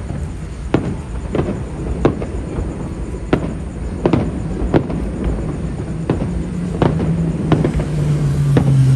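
Fireworks going off: about ten sharp bangs at uneven gaps of roughly half a second to a second, each with a short echoing tail, over a steady rumbling bed. A low steady hum swells in the second half.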